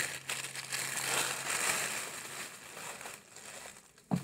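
Clear plastic gift bag crinkling and crackling as it is handled and gathered around a snack tray, dying away near the end.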